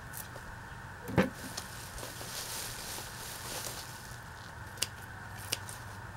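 Hand pruning shears snipping the stalks off freshly dug ginger rhizomes: one loud cut about a second in, leaves rustling as the stems are handled, then two sharp snips near the end.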